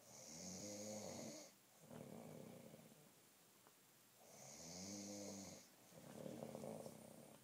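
A man snoring in his sleep: two breaths about four seconds apart, each a louder pitched snore followed by a softer, breathy one.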